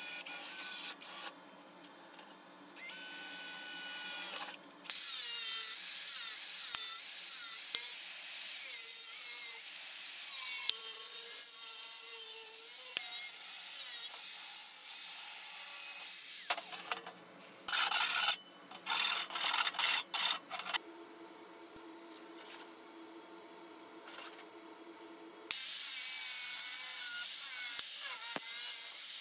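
Power tools on steel. A cordless drill drills briefly into a refrigerant gas cylinder. Then an angle grinder with a cut-off disc cuts through the cylinder wall for about ten seconds, followed by several short grinder bursts, and near the end the grinder makes a steady cut through a flat steel sheet.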